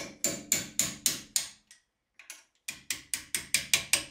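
Hammer striking a steel punch to drive out an old brake caliper retaining pin, sharp metal-on-metal blows with a ringing edge. A run of about six steady blows, a pause of about a second, then a quicker run of about eight blows.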